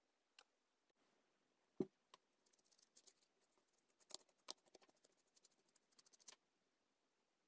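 Faint crackling and light tapping of small torn paper pieces being handled and pressed onto a paper collage with a pen, after one soft thump about two seconds in.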